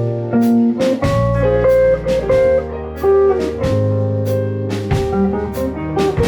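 Instrumental jazz band music played live: a melody of sustained notes over a bass line, with regular drum-kit and cymbal hits and no singing.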